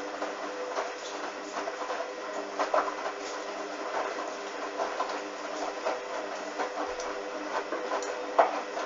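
Hoover washing machine running mid-cycle: a steady motor hum with irregular clicks and swishes from the turning drum and the wet load.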